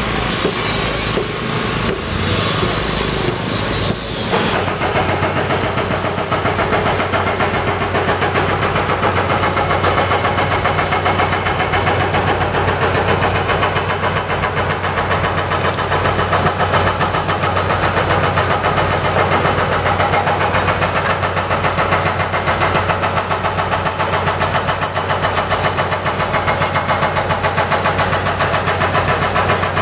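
An engine on construction machinery running steadily, with a fast, even throb and a low hum. For the first four seconds a loud hiss sits over it, then stops.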